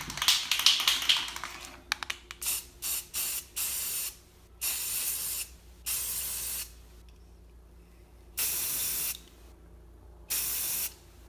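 Aerosol spray paint can spraying onto the surface of water in separate hissing bursts: a few quick short puffs, then four longer bursts of about a second each with pauses between. A brief clattery rattle comes at the start.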